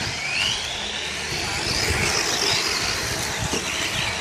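Radio-controlled model cars racing on a dirt track: a high-pitched motor whine that rises and falls with the throttle, over a steady hiss of tyres and track noise.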